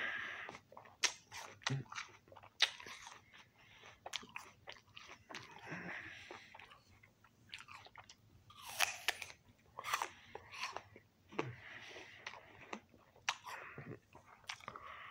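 Close-up biting and chewing of a crisp raw apple: wet, crackling crunches that come in clusters, with the loudest bunch of bites about two thirds of the way through and more near the end.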